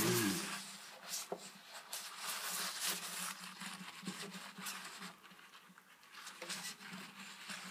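Paper towel rubbing and rustling in irregular strokes as it wipes water droplets off a wetted pickguard on an acoustic guitar's spruce top. The rustle is loudest at the start.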